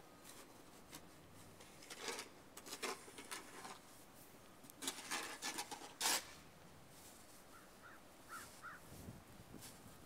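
Snow shovel scraping and scooping snow in two spells of quick strokes, the sharpest scrape about six seconds in.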